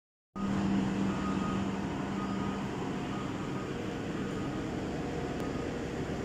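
A steady low hum over an even background noise, starting abruptly a moment in; a running machine of some kind.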